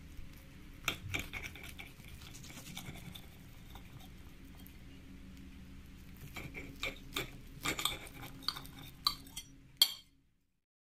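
A metal fork and table knife clicking and scraping against a ceramic plate while cutting through an omelet, over a faint low hum. A few clicks come about a second in, a denser run of clinks follows in the second half, and the sound cuts off suddenly near the end.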